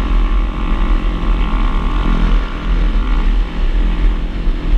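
Honda Grom's 125 cc single-cylinder engine running at a steady cruise while the wind rushes over a helmet-mounted microphone, with other minibikes riding in a group around it. A steady high tone sits over the noise and stops about three seconds in.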